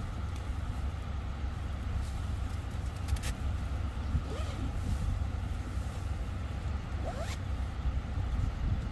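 Wind buffeting the microphone in a steady low rumble. Over it come a few brief scraping or zipping sounds, about three, four and seven seconds in.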